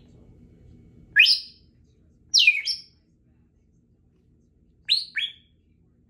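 Congo African grey parrot giving five short, loud whistled chirps, mostly rising in pitch: one about a second in, a pair around two and a half seconds, and a pair near the end.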